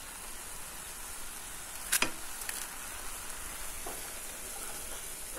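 A pan of long bean leaves sizzling steadily on the heat, with one sharp clack about two seconds in and a few faint ticks after it.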